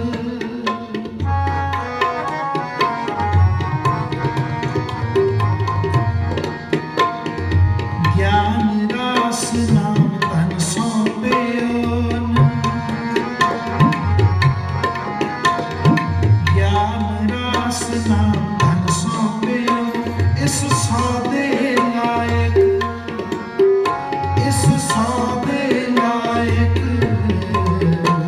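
Tabla played fast and continuously in a kirtan interlude, with deep bass-drum strokes that bend in pitch under crisp treble strokes, over held melodic notes.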